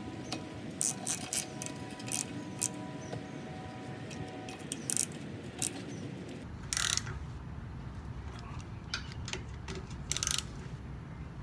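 Socket ratchet wrench clicking in short runs, with two longer runs in the second half, as the bolts holding a hydraulic power unit's tank to a steel trailer frame are tightened.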